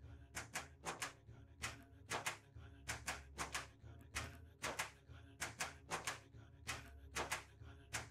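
Quiet background music, a soft rhythmic track of short percussive clicks about three a second over a low hum.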